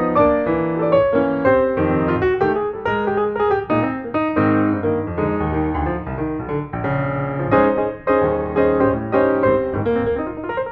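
Background piano music, a steady stream of notes with chords underneath.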